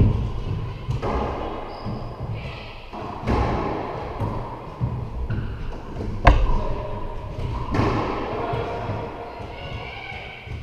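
Racquetball rally: about five sharp hits of racquet on ball and ball against the court walls, each echoing around the enclosed court, the loudest about six seconds in.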